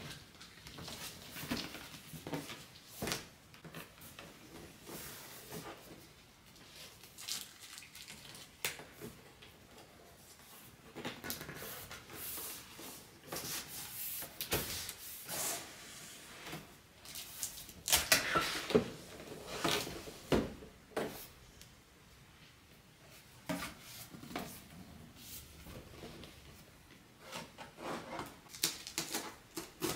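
Large white cardboard box being handled and opened: paperboard sliding and rubbing, lid flaps folding open, and scattered light knocks and taps. The loudest scraping and knocks come about two-thirds of the way through.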